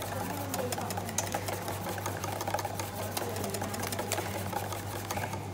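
Wire whisk beating a liquid coconut milk gelato base in a stainless steel bowl over an ice bath, its tines ticking rapidly against the metal.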